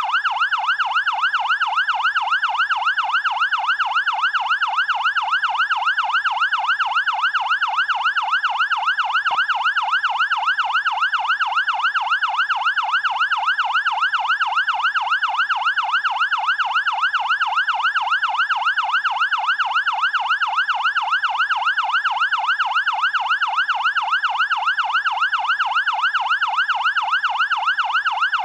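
Fire engine siren in a fast yelp, its pitch rising and falling about three times a second, steady and unbroken.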